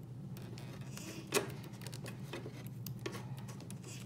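Light, scattered clicks and ticks of a small hand tool and fingers working the wheel hex off an RC crawler's front stub axle, with a sharper click about a second and a half in. A steady low hum runs underneath.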